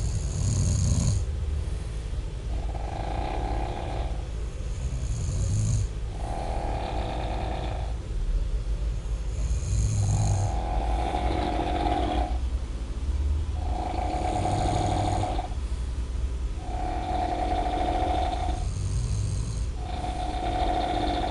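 A person snoring loudly and rhythmically, one rasping snore about every three to three and a half seconds. Later snores carry a steady humming tone.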